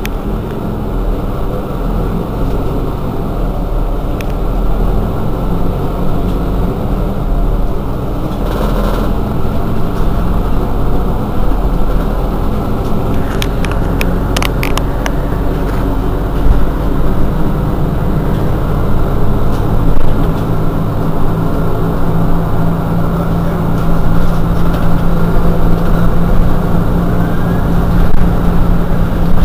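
Mercedes-Benz Citaro G C2 articulated bus engine running steadily at the stop, growing louder in the last third. A short hiss comes about nine seconds in, and a few sharp clicks follow a few seconds later.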